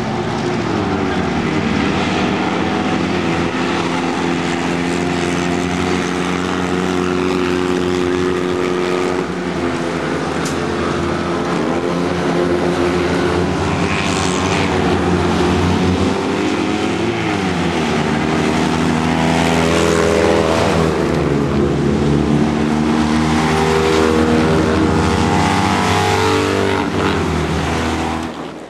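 Citroën 2CV autocross cars racing with their air-cooled flat-twin engines. The engines are revving hard, rising and falling in pitch through gear changes and corners, and the sound fades out at the very end.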